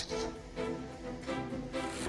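Background music under a narrated compilation: sustained notes changing every half second or so.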